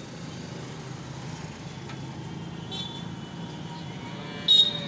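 A vehicle horn gives two short toots: a faint one about midway and a much louder one near the end, over a steady low hum.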